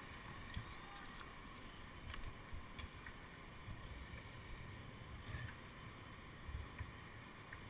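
Faint wind rumbling on a helmet camera's microphone, swelling now and then, with a few faint clicks.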